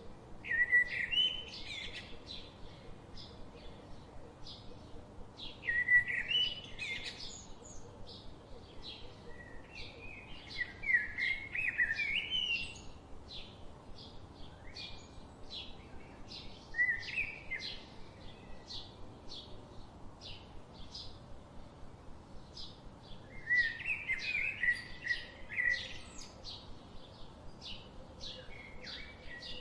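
Songbirds chirping and singing: a steady run of short, high chirps about twice a second, with louder warbling song phrases every few seconds.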